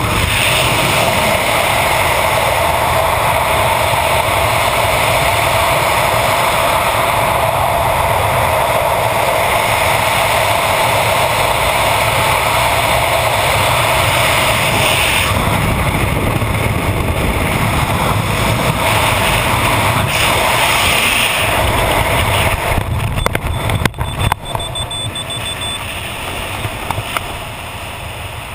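Steady, loud rush of freefall wind across a skydiving camera's microphone. A few sharp knocks come about three quarters of the way through, and the wind noise then dies down.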